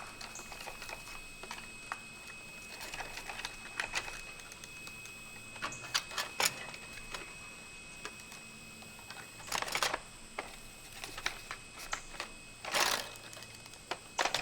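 Hands handling a small RC plane and its battery pack: scattered light clicks and taps, with two brief scraping rustles, one about ten seconds in and one near the end.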